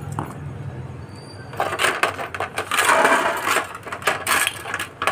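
Electrical insulating tape being pulled off its roll and wrapped around a wire joint: a crackling rip starting about one and a half seconds in and lasting about three seconds.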